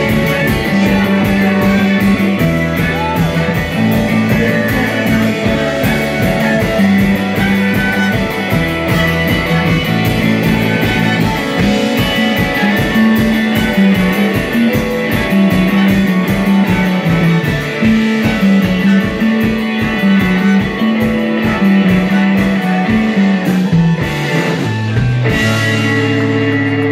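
Live rock band playing an instrumental passage: electric guitars over bass notes and a steady drum beat, ending on a held chord near the end.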